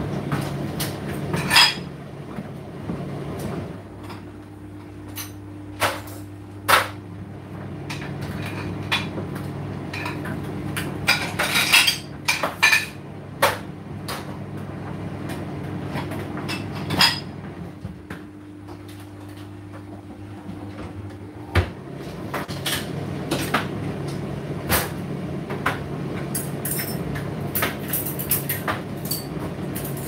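Indesit IDC8T3 condenser tumble dryer running mid-cycle: a steady motor and fan hum with irregular knocks and clinks as the load tumbles against the drum. The hum shifts to a different tone about four seconds in and shifts back about 21 seconds in.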